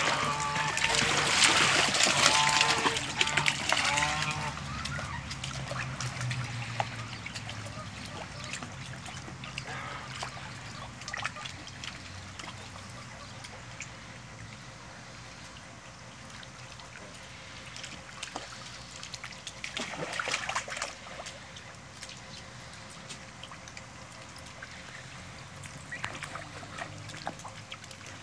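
Muscovy ducks splashing and dabbling in shallow water, with water trickling. The splashing is loudest in the first few seconds, where a few short calls are mixed in, and flares again briefly about twenty seconds in.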